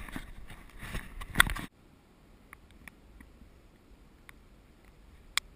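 Knocks and clatter in a small fishing boat, cutting off abruptly about a second and a half in to a low hush with a few faint ticks and one sharp click near the end.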